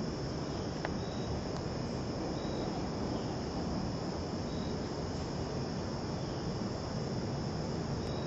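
A steady, high-pitched chorus of insects, a constant drone with a few faint short chirps, over an even background hiss.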